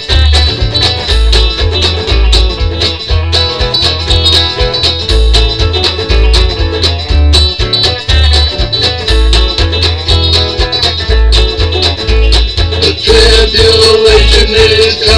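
Fast country-style song with no singing: electric guitar strummed over a steady, repeating bass line.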